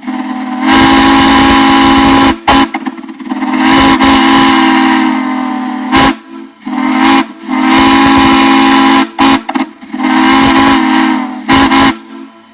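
A large, deep whistle sounding several notes at once over a strong hiss. It is blown in four long blasts with short toots between them.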